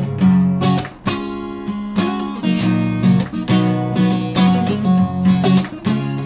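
Acoustic guitar being strummed, a run of chords that change about every second, the notes ringing between strokes.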